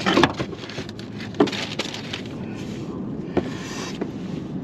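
Scattered metal knocks and clinks with scuffing and rustling as a new front strut-and-coil-spring assembly is worked into place and its bolts are fitted. Three sharp knocks stand out: one right at the start, one about a second and a half in, and one past the three-second mark.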